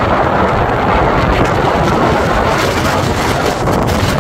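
Strong wind buffeting the microphone: a loud, steady rushing noise with a heavy low rumble.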